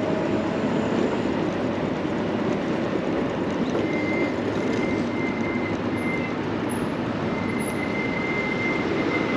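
Steady rush of wind and tyre noise from an electric bike riding along a city street. A faint high whine comes and goes in the second half.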